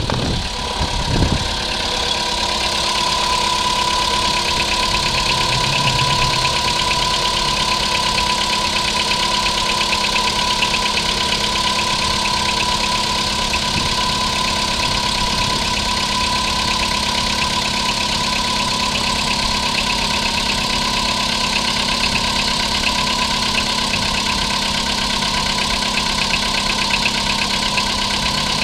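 Volkswagen Polo Sedan's 1.6-litre four-cylinder petrol engine idling steadily after a start, with a steady high whistle running over it. The cold-start knock it is being checked for has died away and is hard to hear.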